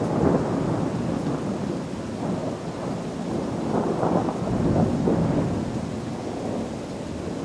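Thunder rumbling over steady rain, swelling louder just after the start and again about four to five seconds in.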